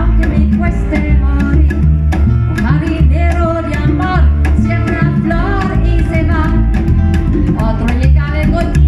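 Latin band music in a guaguancó rhythm: hand drums keep a steady driving beat under a gliding melody line.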